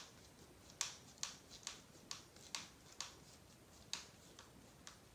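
Faint, sharp clicks, unevenly spaced at roughly two a second, as a hex driver turns a 12 mm button-head screw all the way into a plastic RC buggy transmission case.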